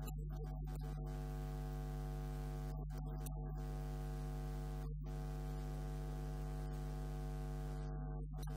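Steady electrical mains hum and buzz, one unchanging low tone with a stack of higher overtones, covering the audio track.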